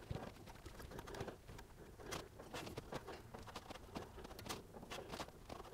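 Faint light clicks and rubbing as the threaded turnbuckle rod of an adjustable alternator adjustment bar is spun by hand, its rod ends screwing out to push the alternator over and tighten the drive belt.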